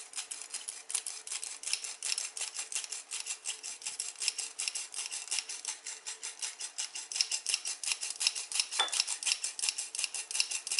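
Stainless steel squeeze-handle flour sifter being worked steadily, its wire agitator rasping the ground buckwheat through the mesh in rapid, even clicks, about five or six a second.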